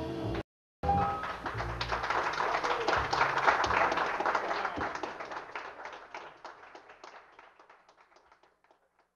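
A live bebop band led by alto saxophone cuts off abruptly. After a short gap comes audience applause, a dense patter of clapping that swells and then fades slowly away to silence.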